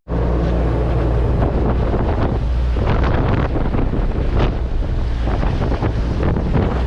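Wind buffeting the microphone over a steady rush of water: the South Fork of the Yuba River running high in flood after heavy rain.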